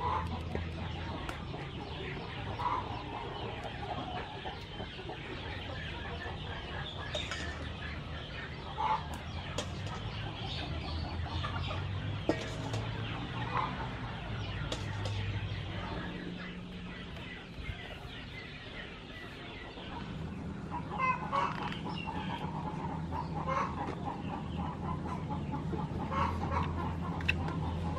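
Chickens clucking now and then, with a few light metal clinks over a steady low hum.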